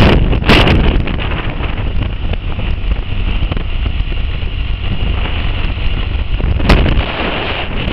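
Wind buffeting the microphone of a camera on a moving motorcycle, a loud steady rumble with the bike's running noise underneath. Sharper gusts hit about half a second in and again near the end.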